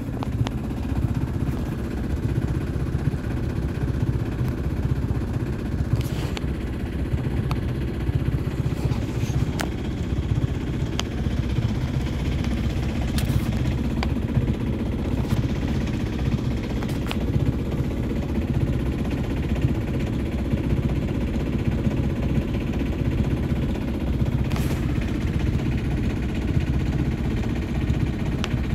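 Shipman 28 sailboat's engine running steadily while motoring, a constant low drone, with a few faint clicks over it.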